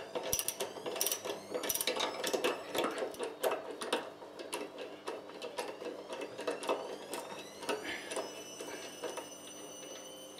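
Socket ratchet clicking rapidly in quick runs as it is worked back and forth on the 15 mm left-hand-thread bolt that holds a Husqvarna CTH151 mower blade, loosening it. The clicking thins out and fades after about seven seconds.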